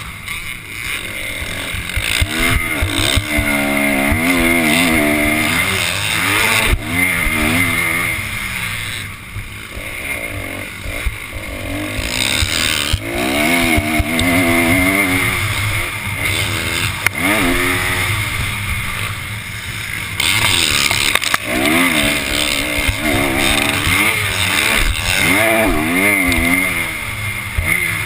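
Motocross bike engine heard from on board, revving hard and dropping back again and again as the rider accelerates, shifts and backs off through turns, with a few sharp knocks from the bike over the rough track.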